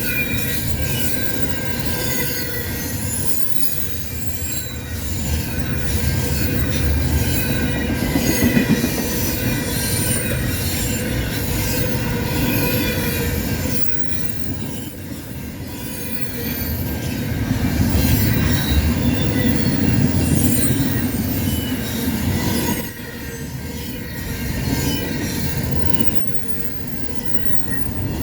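Freight cars of an intermodal train rolling past with a continuous low rumble that swells and dips, the steel wheels squealing against the rails in many short high-pitched squeals.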